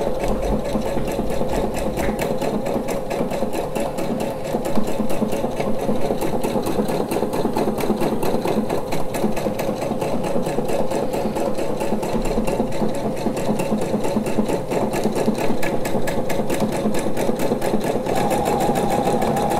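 Pfaff Expression 710 computerized sewing machine running at a slightly reduced speed, stitching out programmed decorative lettering: a steady motor hum under a rapid, even run of needle strokes.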